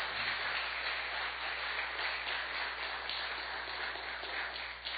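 Audience applauding, many hands clapping together in a steady patter that dies away near the end.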